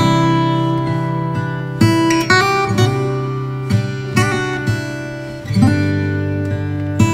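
Background music on acoustic guitar: chords struck and left ringing, with new plucked notes and chord changes every second or two.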